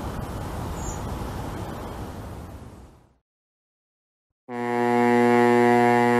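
A rushing noise fades out over about three seconds and is followed by a brief silence. About four and a half seconds in, a long, steady, low blast of a ship's horn begins.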